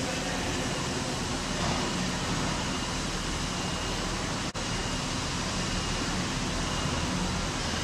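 Steady station noise as a Great Western Railway Turbo diesel multiple unit runs into the platform, with a faint low engine hum under it. The sound cuts out for an instant about halfway through.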